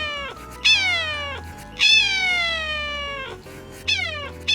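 Domestic cat meowing four times. Each meow starts sharply and slides down in pitch, and the third is the longest.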